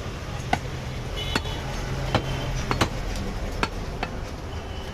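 A butcher's cleaver chopping through a mutton leg on a block: about seven sharp chops at an uneven pace, roughly one or two a second.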